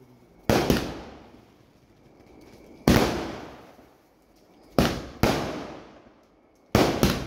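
Firecrackers bursting: about seven sharp bangs at irregular intervals, some in quick pairs, each followed by an echo that dies away over a second or so.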